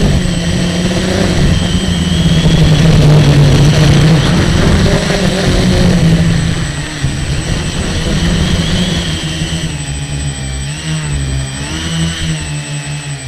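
Motors and propellers of a small radio-controlled aircraft, heard from the onboard camera: a steady whirring drone with a high whine. The pitch wavers as the throttle changes, and the sound eases off near the end.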